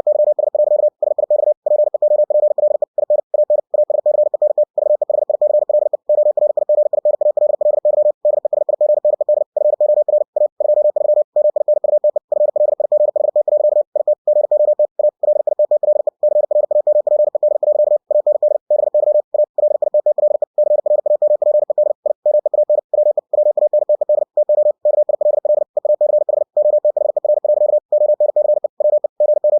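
Morse code (CW) sent at 60 words per minute as a computer-generated tone of about 600 Hz: a fast, steady stream of dits and dahs broken by frequent short gaps.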